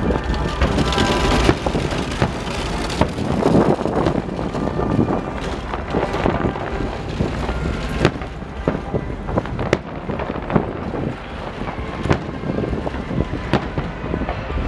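Aerial fireworks shells bursting, a string of sharp bangs roughly every second over a steady low rumble.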